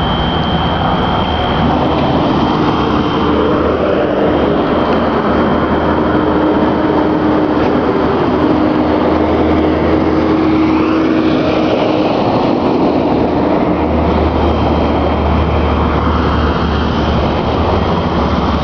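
A building alarm of the fire-alarm kind sounding continuously as one steady high tone. It is half buried in the middle by the louder noise of traffic passing along the street, twice.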